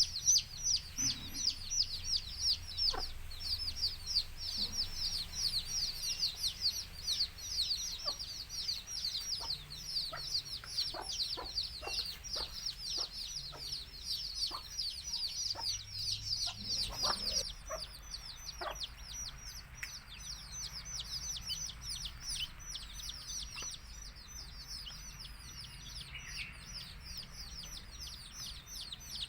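A brood of baby chicks peeping non-stop, many rapid high downward-sliding peeps, with a few short lower clucks from the hen among them. The peeping grows softer a little past halfway.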